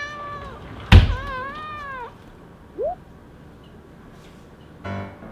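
A Munchkin cat meowing twice: the first call falls in pitch and the second wavers. A loud sharp thump comes between them, and a brief rising call follows. Piano music starts near the end.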